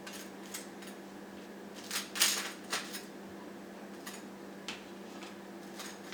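Table knife clinking and scraping against a plate while butter is spread on bread: scattered light clicks, with a louder scrape about two seconds in, over a steady low hum.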